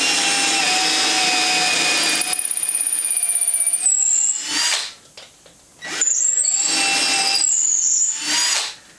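Cordless drill boring a hole into the underside of a small wooden workpiece: the motor runs steadily for about four and a half seconds and stops, then runs again for about two and a half seconds, stopping near the end.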